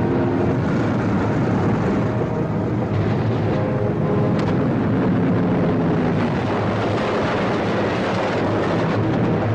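Steady, loud drone of a B-17 bomber's radial engines as it comes in low for a wheels-up belly landing.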